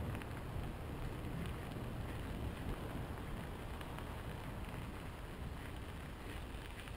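Steady low rumble and crackle of travel over a gravel trail, with wind buffeting the microphone.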